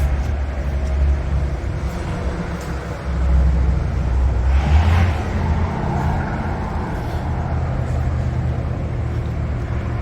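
Street traffic: a car passes, swelling to its loudest about halfway through and then fading, over a steady low rumble.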